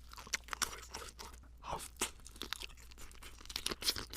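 Close-miked crunching and chewing of crisp spicy fire chicken: irregular sharp crunches as the pieces are bitten and chewed.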